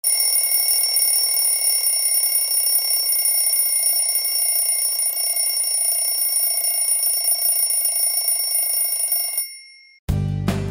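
An alarm rings continuously with a steady bell-like ringing, waking a sleeper, and stops abruptly about nine and a half seconds in. Acoustic guitar music begins right at the end.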